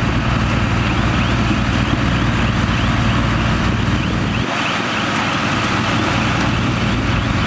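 Heavy construction machine's diesel engine running under load, a steady deep rumble with a dense mechanical clatter over it. About halfway through, the lowest rumble drops off while the engine keeps running.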